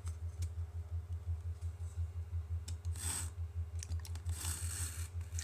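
Hobby knife scraping and cutting into a thin cardboard rocket body tube in two short strokes, over a steady low hum.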